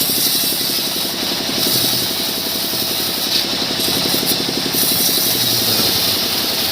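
Engine-driven sawmill saw running steadily through small mahogany logs: a rhythmic engine drone underneath a constant high saw whine.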